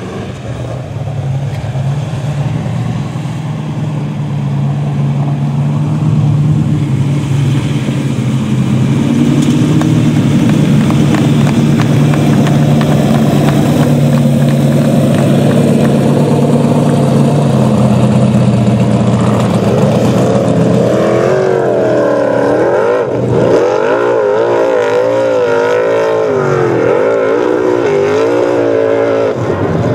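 Formula Offroad hillclimb buggy's engine running hard on full throttle up a steep sand slope, getting louder over the first few seconds. From about two-thirds of the way in, the revs swing rapidly up and down.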